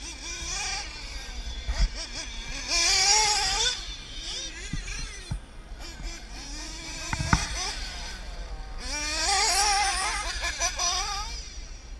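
Radio-controlled off-road race cars running on a dirt track, their motors whining and gliding up and down in pitch as they pass close by. Two sharp knocks sound, about two seconds in and again past the middle.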